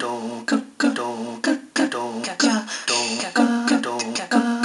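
Digitized vocal music played back by a Commodore 64's SID chip: short sung and beatbox-style notes in a steady rhythm, each starting with a sharp percussive hit.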